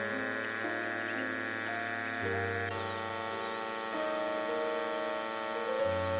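Background music of held, sustained chords over a slow melody. The bass note changes twice.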